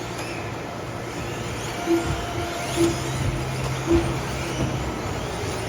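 Electric 1/10 scale 2WD off-road RC buggies running on the track, their motors whining high and rising and falling in pitch as the cars accelerate and pass.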